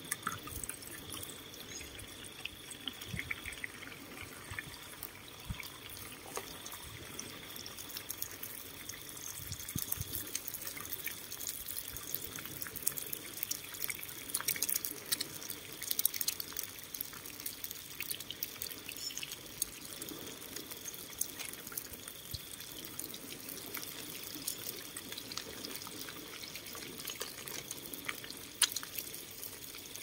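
Eggs frying in a small pan on a portable gas-canister stove: a steady sizzle with many scattered crackles and pops, thickest midway through.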